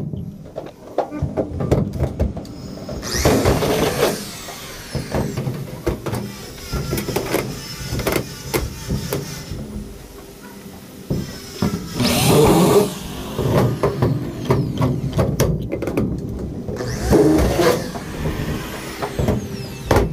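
Spandrel ceiling panels being handled and pushed into place: long strips scraping and rattling against each other and the frame, with many small knocks. There are three longer, louder scraping swishes, a few seconds in, about twelve seconds in and about seventeen seconds in.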